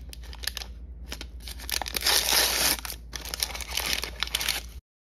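Plastic blind-bag packet crinkling in the fingers and being torn open, with many small crackles and the loudest stretch about two seconds in.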